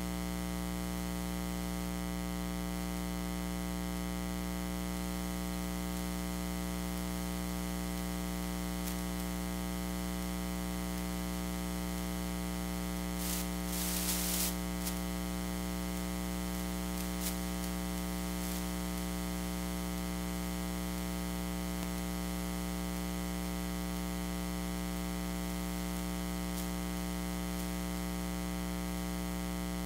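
Steady electrical mains hum and buzz with static hiss in the sound-system feed while the microphone is dead. A short scrape of noise comes about halfway through.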